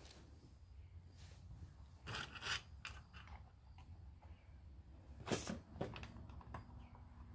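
Scattered light clicks, taps and rustles of the Run-Chicken automatic chicken door's parts being handled on a wooden table. There is a small clatter about two seconds in and a sharper knock about five seconds in.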